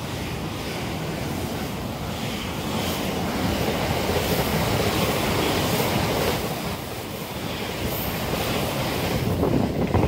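Limited express electric train passing through the station at speed close by: a loud rushing of wheels on rail and moving air. It is loudest about four to six seconds in, eases briefly, then swells again near the end.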